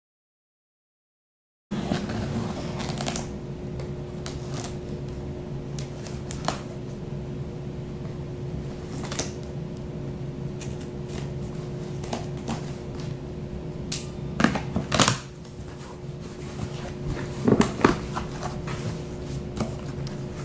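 Packing tape on a cardboard box being slit with a pocket knife and the box flaps pulled open: a run of scrapes, rustles and taps over a steady low hum, starting after about two seconds of silence, with the loudest handling near the end.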